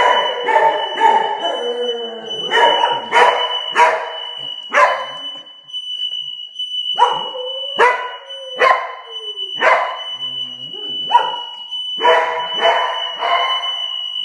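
A smoke alarm sounding a steady high-pitched tone with no fire, while a corgi barks at it in bunches of several barks with short pauses between.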